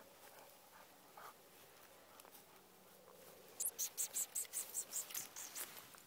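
Faint at first. From about halfway, a quick, regular run of swishing, rustling footsteps through long grass, about four a second.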